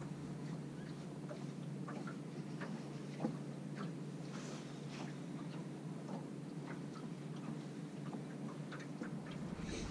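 Small, irregular clicks and ticks of braided fishing line and a metal bead-chain snap being handled while a Palomar knot is tied, over a steady low hum.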